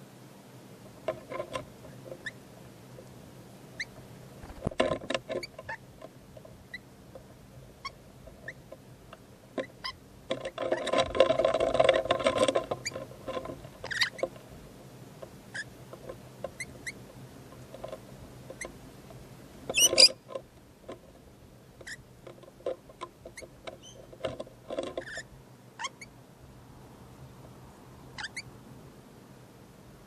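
Rainbow lorikeet feeding on soft fruit close to the microphone: scattered small clicks and wet bites of its beak in the flesh. A louder call of about two seconds comes about a third of the way in, and a single sharp sound about two-thirds in.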